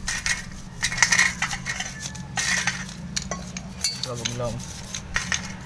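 Light metallic clinks, taps and scrapes of tools and steel bike parts being handled, irregular and short, over a steady low hum.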